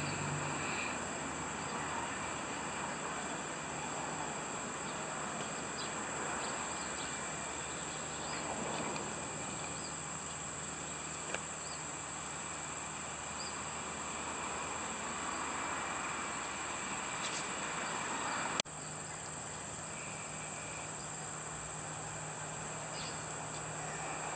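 Steady, high-pitched chorus of insects, with one sharp click about three-quarters of the way through.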